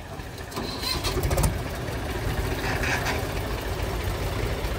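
Diesel tractor engines running at close range, growing louder about a second in, with a few sharp clicks around then. The nearest is a Mahindra 265 DI's three-cylinder diesel.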